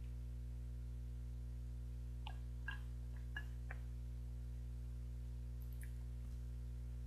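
Steady low electrical hum, with a handful of faint short clicks about two to four seconds in and a couple more near the end, as a drink is sipped from a bottle.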